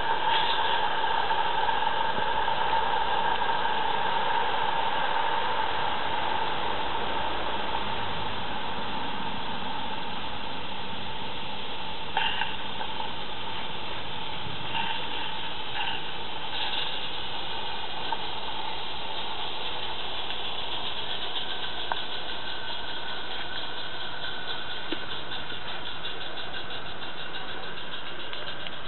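Roundhouse Billy live-steam garden-railway locomotive running: a steady hiss of steam with a rapid exhaust beat. It is loudest at first, with a few short clicks midway, and the fast beat comes through more plainly in the second half as the engine draws near.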